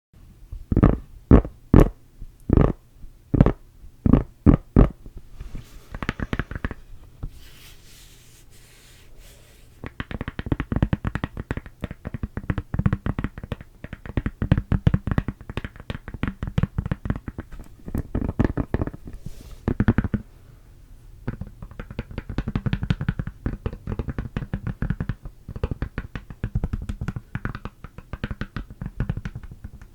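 Close-miked ASMR mouth sounds and tapping. A string of loud, separate pops and taps comes first, then a softer hissy stretch, and from about ten seconds in a fast, dense run of wet clicks and taps.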